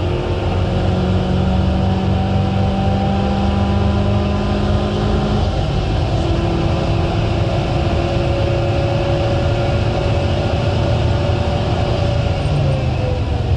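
2006 Mitsubishi Colt Ralliart's turbocharged 1.5-litre four-cylinder engine under hard acceleration on a track straight, heard from inside the cabin over road and wind noise. Its pitch climbs slowly, then falls near the end as the driver lifts off for the corner.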